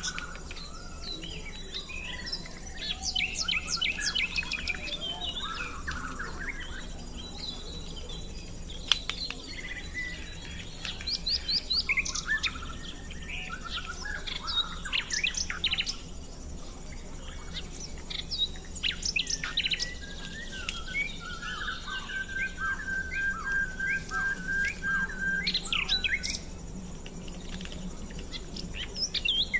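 Several birds chirping and calling in quick, overlapping bursts, with one steady rapid trill held for about five seconds past the middle. A single sharp click about nine seconds in.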